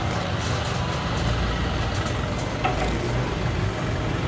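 Road traffic going past: the steady engine noise of motorbikes and other vehicles on the street.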